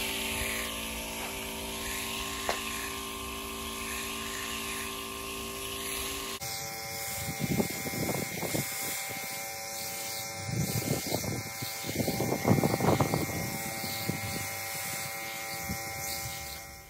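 The motor of a spray pump buzzing steadily while water sprays as a fine mist from its wand onto seedling trays. Uneven louder noises come and go in the middle.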